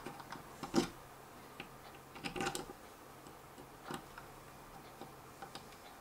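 Scattered light clicks and taps of small plastic parts and screws being handled while a plastic prop guard mount is fitted to a drone's motor arm, with the clearest clicks a little under a second in, around two and a half seconds and around four seconds.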